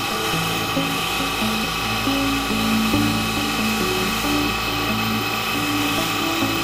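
Background music with a moving bass line over the steady whine of the OD grinder's electric motor driving its hydraulic pump.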